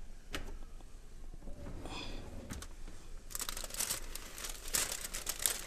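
Heavy-duty aluminium foil and a foil roasting pan crinkling loudly from about three seconds in as the foil-covered brisket pan is gripped and pulled from the oven. Before that there are a few clicks and a short scrape.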